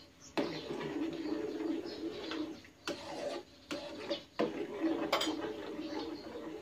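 Metal spoon stirring and scraping around an aluminium saucepan of coconut cream and rice flour, with a few sharp clinks against the pot.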